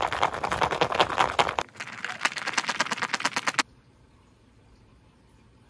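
Metal chopsticks briskly stirring sticky natto in a plastic tray, a fast, even run of wet clicks. It breaks off briefly at a cut, resumes, and stops abruptly a little after halfway, leaving faint room tone.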